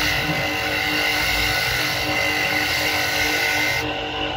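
An engine or motor running steadily, a constant hum with several held tones over a noisy background.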